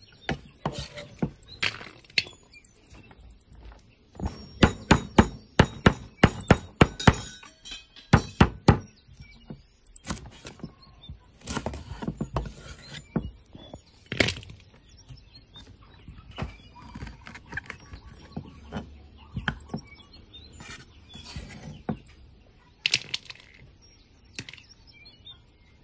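Cleaver chopping shallots, garlic and lemongrass on a wooden chopping board: sharp knocks, with a quick run of about three chops a second from roughly four to nine seconds in, then scattered single chops.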